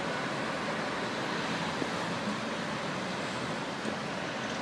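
Steady wash of city street traffic noise, with no single vehicle standing out.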